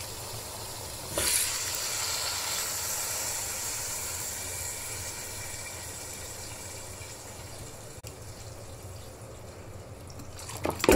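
Water poured from a plastic bottle into a cooking pot, a steady pour that starts suddenly about a second in and slowly tapers off. A short clatter comes near the end.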